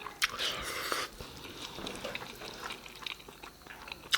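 Close-miked wet eating sounds: lip smacks and clicks of the mouth, with a short slurp about a quarter second in, then quieter chewing.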